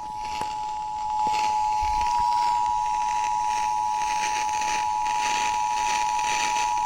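Emergency Alert System two-tone attention signal: two tones sounding together as one steady, unbroken beep, with hiss from the broadcast reception behind it. It signals that an emergency alert message follows, here a severe thunderstorm warning.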